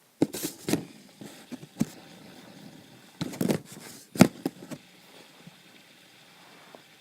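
Fidget spinners being handled and set down on a box: a series of knocks and clatters, the loudest about four seconds in.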